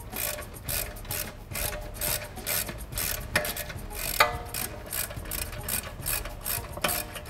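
Socket ratchet wrench clicking in quick, even strokes, about three a second, as it backs out a large strut-to-spindle bolt to free the front air strut. A few sharper metallic clinks ring briefly about three and four seconds in.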